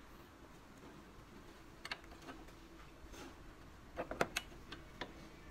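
Light metallic clicks and clinks of hand tools and parts being handled at a car's front tie rod end. There is a single click about two seconds in, then a quick cluster of sharper clicks around four seconds in, over a faint steady workshop hum.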